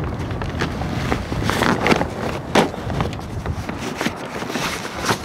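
Canvas sail cover and sailcloth rustling and crinkling as they are pulled and folded by hand on the boom, with irregular scrapes and one louder hit about two and a half seconds in.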